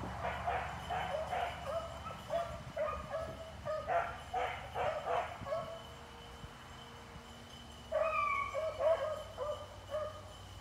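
Beagles baying in quick runs of short, overlapping yelps, the sound of hounds giving voice on a scent trail. The baying breaks off a little past the middle for about two seconds, then starts again.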